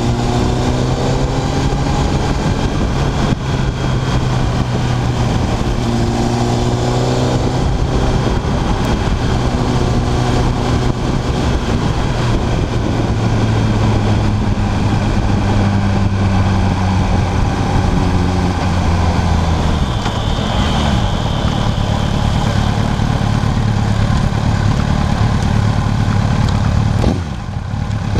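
Sport motorcycle engine running under way, with steady wind noise over the camera. The engine note climbs with the revs and steps down at gear changes several times. It drops away briefly near the end as the bike slows.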